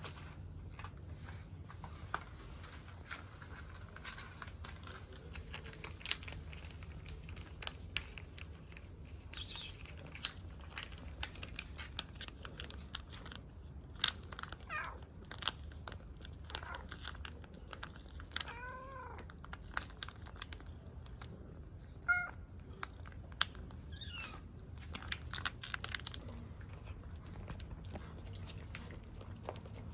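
Cat meowing a few times, with one long meow that rises and falls about two-thirds of the way through and shorter meows around it. Many small clicks and crunches run between the meows.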